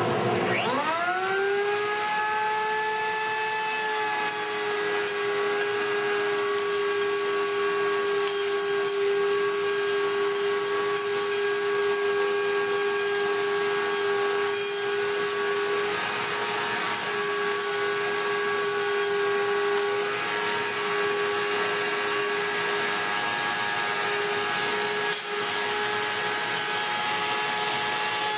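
Router in a benchtop router table spinning up with a rising whine over about the first two seconds, then running at full speed with a steady high whine as a board is fed along the fence past the bit to joint its edge.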